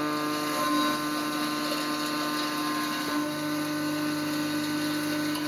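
CNC milling machine plunge-milling: a steady, high-pitched machining whine made of several held tones over a noisy hiss.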